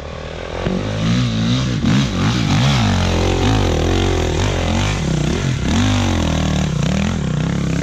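Dirt bike engine revving hard, its pitch rising and falling over and over as the throttle is worked on a climb. It gets louder about a second in.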